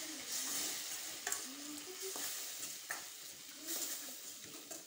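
A steel spoon stirring and scraping a thick tomato-onion masala in a stainless-steel kadai over a steady frying sizzle. A few sharper scrapes against the pan mark the strokes. The spice powders have just been added and are being stirred in.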